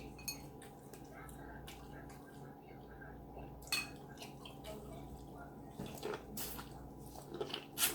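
Scattered short wet clicks and smacks of seafood being eaten by hand: meat picked from shells and chewed, with the sharpest clicks about a third of the way in and near the end. A faint steady hum runs underneath.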